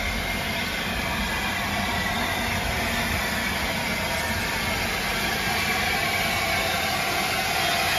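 Steady rumble and hiss of trains standing at a station platform, among them a stationary steam locomotive.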